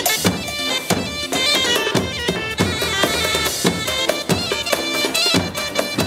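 Zaffe wedding music: large double-headed bass drums beating a steady rhythm, about two strikes a second, under a loud, shrill reed wind instrument playing a wavering folk melody.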